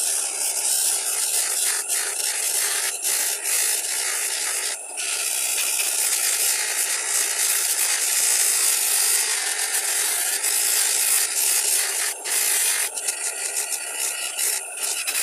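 Electric motor spinning a cloth buffing wheel on a tapered spindle as a hand-made knife's steel blade and then its wooden handle are pressed against it for polishing: a steady hiss of the wheel rubbing the work over the motor's running, dipping briefly a few times.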